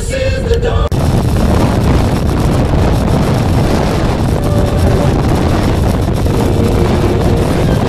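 Music cuts off about a second in, giving way to steady wind rushing over the microphone of a moving trike motorcycle, with a low rumble of engine and road underneath.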